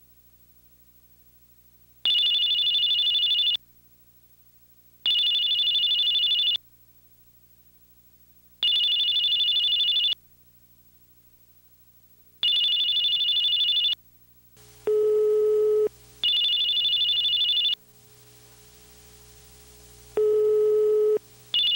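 Mobile phone ringing with an electronic trilling ring: six bursts of about a second and a half each, a few seconds apart. Twice in the second half a lower, steady telephone tone sounds for about a second, the ringback tone on the caller's line.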